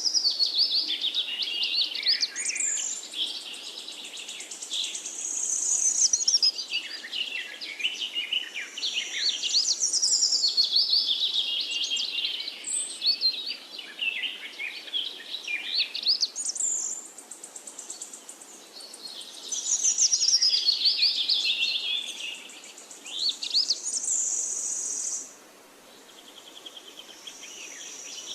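Several forest birds singing over one another in high-pitched phrases of fast chirps, trills and sweeping whistles, with a faint steady hiss behind them. The singing thins to a brief lull near the end.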